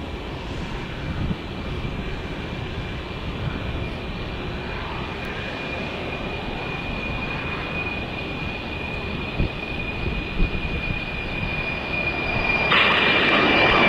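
Twin turbofan engines of a Boeing 767 freighter at takeoff power as it rolls, lifts off and climbs: a steady rumble with a high, even fan whine running through it. About a second before the end the sound suddenly grows louder and brighter.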